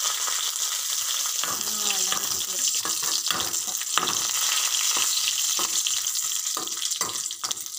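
Coconut oil sizzling as shallots, curry leaves and dried red chillies fry for a tempering. From about a second and a half in, a metal spoon scrapes and clinks against the metal pan as it stirs.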